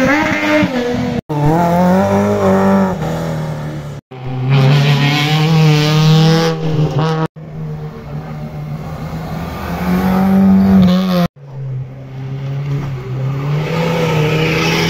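Competition cars' engines at full throttle on a hillclimb, one car after another in short clips cut together. Each engine revs up and shifts through its gears as it climbs past, the pitch rising and dropping at each change, and each clip cuts off abruptly, four times.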